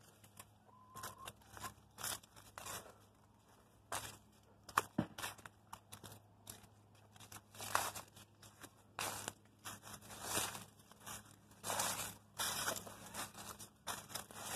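Irregular crunching and rustling, with a sharp click about five seconds in.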